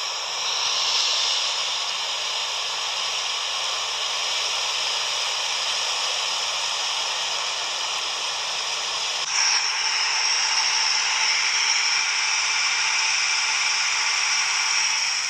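Fast-flowing floodwater rushing, a steady hiss-like roar of water, whose tone changes abruptly about nine seconds in.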